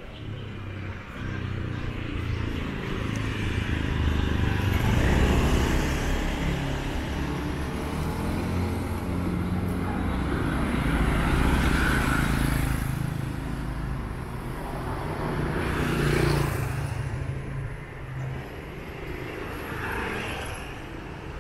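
Street traffic with motor scooters passing close by one after another, each engine swelling and fading away; the loudest passes come about five, twelve and sixteen seconds in.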